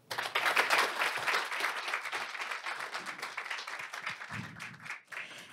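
Audience applauding, the clapping strongest at the start and tapering off until it dies away near the end.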